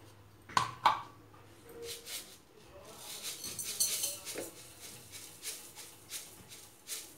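Granulated sugar pouring from a plastic jar into an empty metal kadai: a gritty hiss of grains pattering onto the metal, strongest in the middle of the pour and thinning toward the end. Two sharp clicks come just under a second in as the jar is handled.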